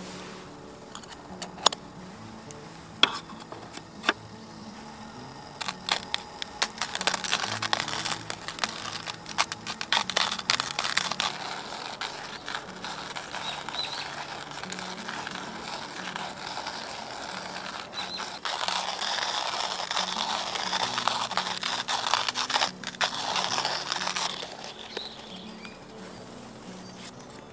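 Stainless steel hand coffee grinder: a few sharp clicks as it is handled and its crank fitted, then the crank turning and crushing coffee beans with a dense gritty crackle from about six seconds in, stopping shortly before the end.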